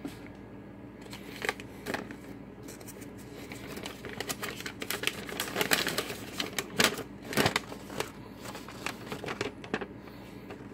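A folded paper instruction sheet being unfolded and handled: irregular crackles and rustles, busiest in the middle.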